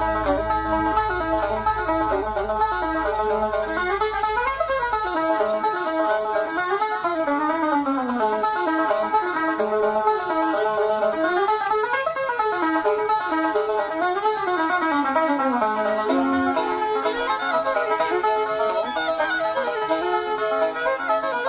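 Instrumental background music with melodic runs rising and falling over sustained chords.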